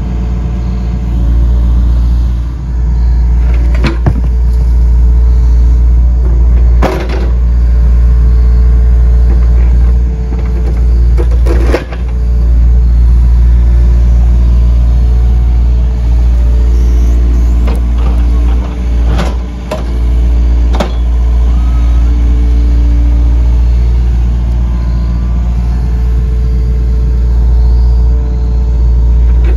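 Yanmar mini excavator's diesel engine running steadily under load as its hydraulic arm works, with several sharp clanks and knocks from rocks striking the bucket and being set on the culvert pipe.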